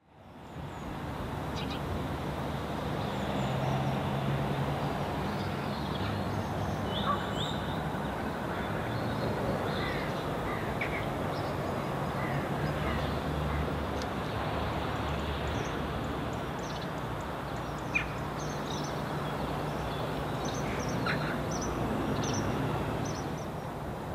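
Lakeside ambience fading in: birds calling now and then, short scattered calls over a low steady hum and a wash of background noise.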